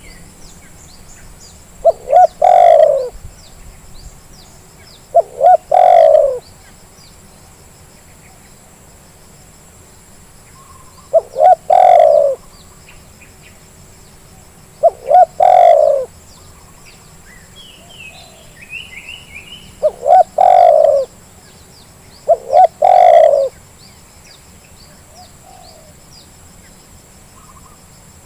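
Spotted dove cooing: six calls a few seconds apart, each two quick notes followed by a longer rolling coo. Faint chirps of small birds sound between them. This is a lure call, played to get a reluctant caged dove to start calling.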